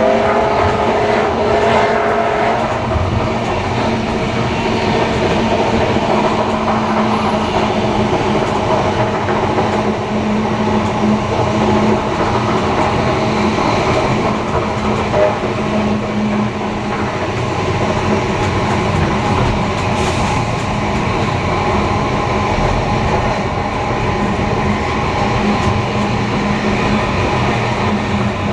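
Steam-hauled train hauled by locomotives 3265 and 3526 running steadily: a continuous rumble of wheels on rails with a steady low hum, and a brief higher-pitched tone in the first couple of seconds.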